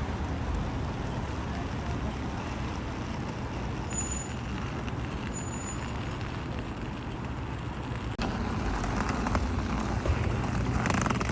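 City street traffic: road vehicles' engines running steadily with tyre and road noise, and two brief high squeaks about four and five and a half seconds in.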